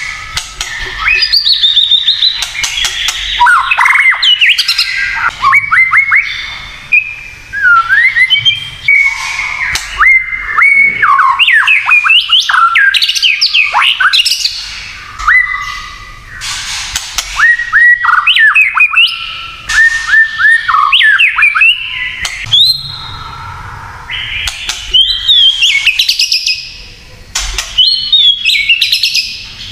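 White-rumped shama (murai batu) singing: loud, fast, varied whistled phrases that glide up and down, mixed with harsh crackling notes (kretekan). It comes in runs of a few seconds with short pauses between them.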